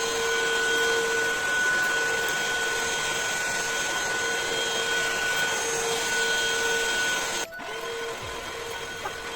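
Cordless stick vacuum cleaner running steadily with its velvet brush head, a motor hum with a high whine and hiss. About seven and a half seconds in it abruptly drops to a quieter steady run.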